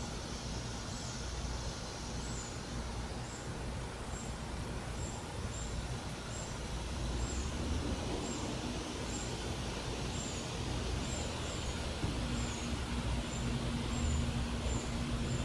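Outdoor ambience: a bird gives a short, high, thin chirp about once a second at uneven intervals over a low rumble. About twelve seconds in, a steady low hum joins.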